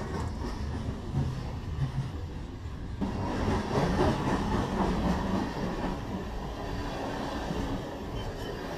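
Steady low rumble of a rolling vehicle, growing a little louder about three seconds in.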